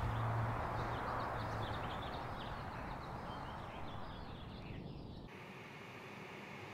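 Small birds chirping over a steady outdoor background that fades away. About five seconds in it gives way abruptly to the steady rush of a tower fan heater running.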